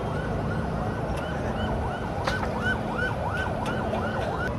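An electronic siren-like tone warbling up and down about three times a second, over steady street hubbub and a low steady hum.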